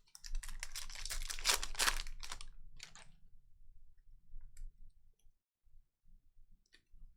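Wrapping on a pack of trading cards being torn open, with crinkling and tearing for about three seconds, then a few faint light clicks.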